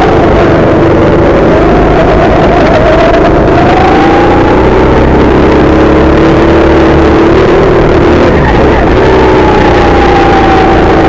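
Go-kart engine running hard, heard close up from the driver's seat, its pitch sagging and climbing again as the kart brakes for and accelerates out of the corners. The sound is loud and rough throughout.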